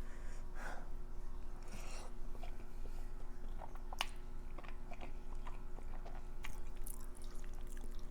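A person chewing food close to the microphone: soft wet mouth sounds and small clicks, with one sharper click about four seconds in.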